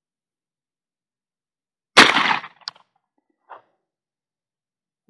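A single 12-gauge shotgun shot from a magazine-fed Husan shotgun, very loud and dying away within about half a second. A sharp click follows straight after, and a faint knock about a second later.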